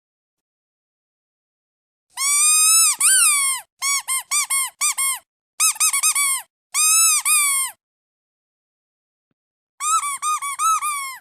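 Squeaky duck toy squeezed in bursts: one long squeak about two seconds in, then runs of short, quick squeaks with silent pauses between them.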